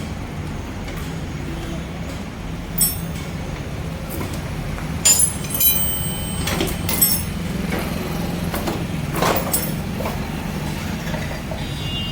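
Scattered metallic clinks and knocks of spanners and motorcycle rear-brake parts being handled while the rear wheel and drum brake are taken apart, over a steady low hum.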